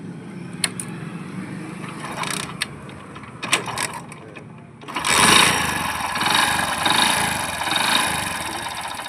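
Motorcycle engine running with freshly adjusted tappets and new rocker adjuster lock nuts, giving a soft 'sak sak sak' beat rather than a tick. It idles low with a few sharp clicks, then about five seconds in it is revved and runs much louder.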